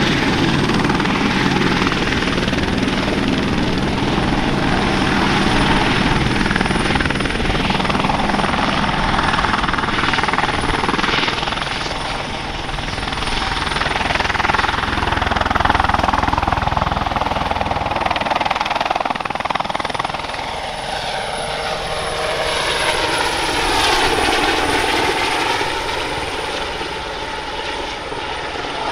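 Airbus Helicopters EC120B Colibri, single Turbomeca Arrius 2F turboshaft, lifting off and climbing away: a steady high turbine whine over the rotor noise. From about twenty seconds in the sound sweeps up and down as the helicopter climbs overhead, and it grows a little fainter near the end.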